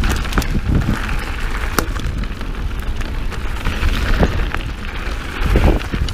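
Mountain bike riding down a dirt singletrack: a steady rumble of tyres on the trail and wind on the microphone, with frequent sharp clicks and rattles from the bike.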